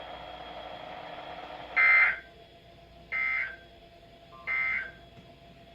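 NOAA Weather Radio SAME end-of-message code: three short digital data bursts about a second apart, marking the end of the alert.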